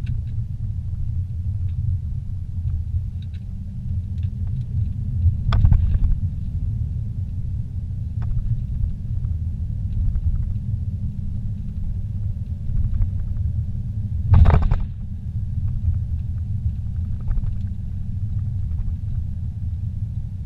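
Inside-the-cabin rumble of a vehicle driving slowly on an unpaved dirt road: a steady low rumble of engine and tyres, with two brief louder knocks about six and fourteen seconds in.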